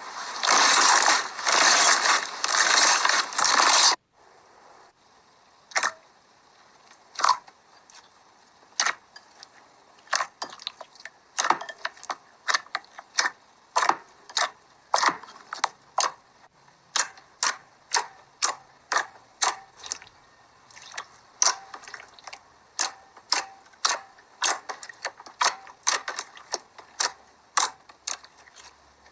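Slime being played with by hand: a dense, loud crackling squish for about four seconds, then after an abrupt change a quieter run of sharp, separate clicks and pops, roughly one to two a second, as the slime is pressed and folded.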